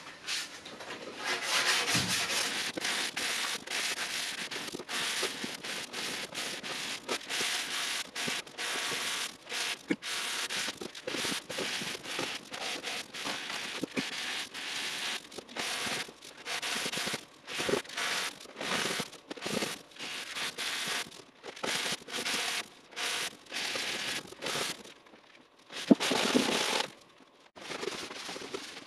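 Hand sanding in quick, irregular back-and-forth strokes, with a brief pause near the end followed by one louder stroke.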